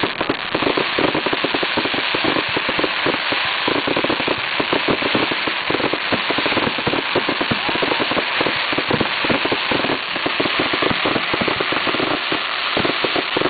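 Fireworks crackling: a dense, unbroken stream of many small rapid pops, like a crackle effect or a string of firecrackers.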